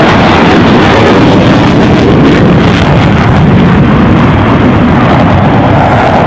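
Dassault Rafale's twin Snecma M88 turbofan jet engines passing overhead, a loud, steady, rushing jet noise with no clear tone that nearly overloads the microphone.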